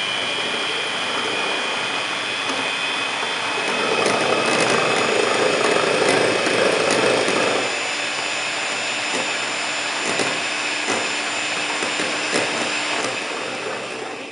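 Electric hand mixer running steadily, its beaters whisking egg whites in a glass bowl, with a thin motor whine over the whirring. It gets louder for a few seconds in the middle and dies away near the end, once the whites have been beaten to a stiff foam.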